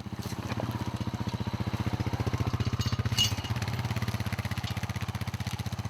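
ATV engine running steadily with an even, rapid throb.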